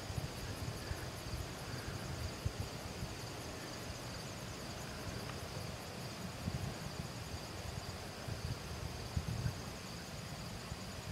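Evening insect chorus: a steady high trill with a fast, regular pulsing chirp above it, over an irregular low rumble.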